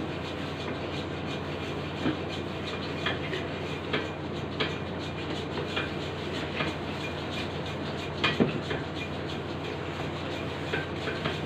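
Hand saw cutting through an ash-crusted block, rasping back-and-forth strokes at roughly one a second, over a steady low hum.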